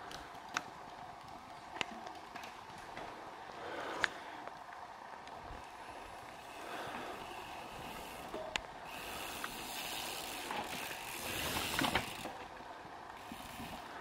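Mountain bikes passing on the race course, freehubs ticking as the riders coast. The sound swells a few times, loudest about twelve seconds in, with a few sharp clicks along the way.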